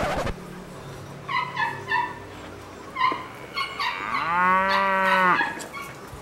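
A single long, low mooing call lasting a little over a second, about four seconds in, rising and then falling at its ends. Short high chirps come and go throughout.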